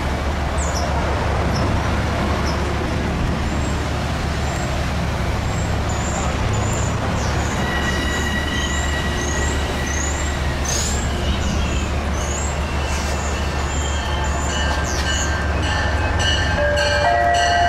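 Passenger train running through the station with a steady low rumble. A string of short high chirps repeats about every 0.7 s through the middle, and steady high-pitched tones come in near the end.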